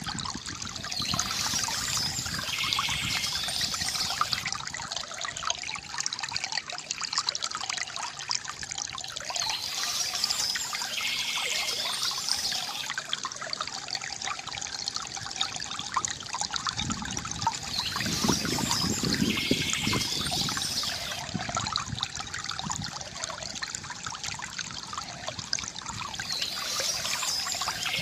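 Water trickling and gurgling steadily from a bamboo fountain, with birds chirping that come in about every eight or nine seconds.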